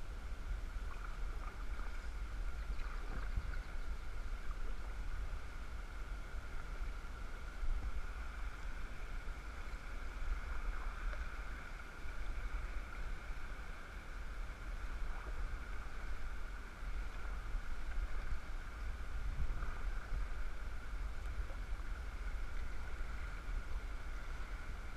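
Rushing river water of a rapid around a fishing kayak's hull, a steady noise with a low rumble underneath.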